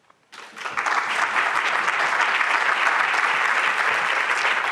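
Audience applauding. The clapping starts about half a second in, builds within a fraction of a second, and then holds steady.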